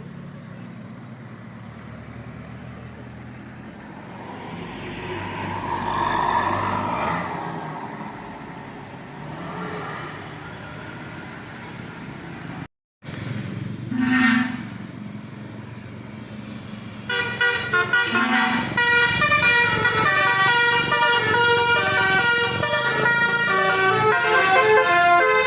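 A bus passes, its engine and tyre noise swelling to a peak about six seconds in. After an abrupt break comes a short horn blast, then, from about two-thirds of the way through, a bus's basuri telolet multi-tone air horn plays loudly, its tones stepping quickly up and down in a melody.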